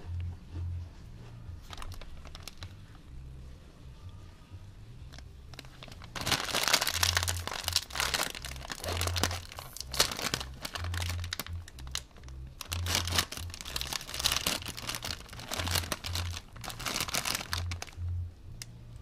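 A Doritos chip bag crinkling loudly as hands grip it and pull it open, starting about six seconds in and going on in two long spells with a short pause between. Background music with a steady bass beat plays underneath.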